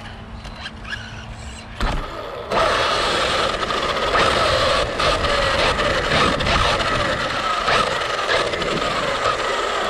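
Radio-controlled car driven hard: a steady motor whine over tyre and dirt noise, setting in suddenly about two and a half seconds in after a knock, its pitch sliding down near the end.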